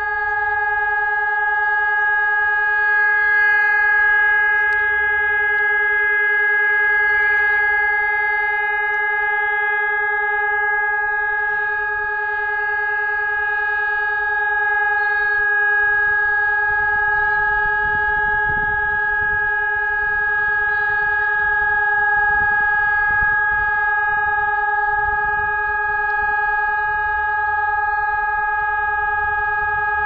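Rooftop electronic civil-defence siren sounding a loud, steady, unbroken tone during a siren test. A long steady tone like this is the form of the German all-clear (Entwarnung) signal.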